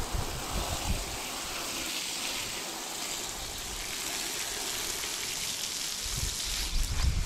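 Water from a garden hose spraying and splashing onto a horse's tail and wet paving, a steady hiss, as shampoo suds are rinsed out. Low wind rumble on the microphone comes in near the end.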